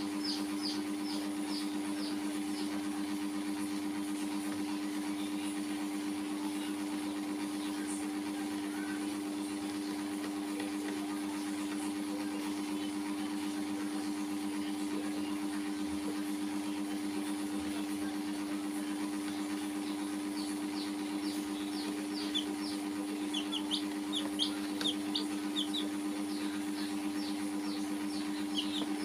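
Baby chicks peeping in rapid series of short, falling cheeps: a run right at the start, then quiet, then many again through the last third. Under them runs a steady, louder hum.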